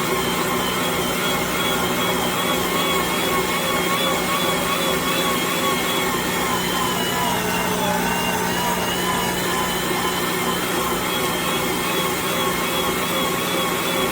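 Electric meat grinder motor running steadily, a loud whine whose pitch wavers slightly.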